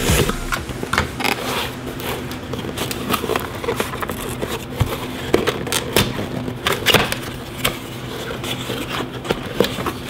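Utility knife slitting the plastic shrink-wrap on a small cardboard box, then irregular crackling, scraping and rustling of plastic and cardboard as the box is handled and opened.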